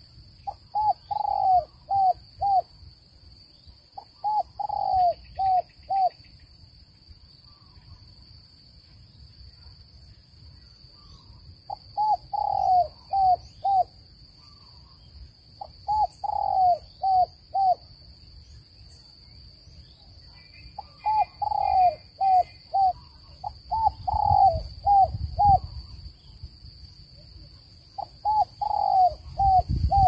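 Spotted dove cooing: seven phrases a few seconds apart, each a longer coo followed by three or four short coos, over a steady high hiss.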